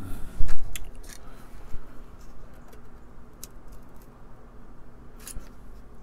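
Workbench handling noises as hand tools and a circuit board are picked up and moved: a loud knock about half a second in, then a few scattered small clicks, over a steady low hum.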